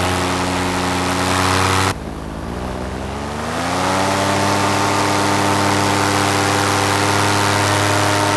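Paramotor engine and propeller running steadily. About two seconds in the sound drops abruptly, then the engine revs up, its pitch climbing over a second or so before holding steady.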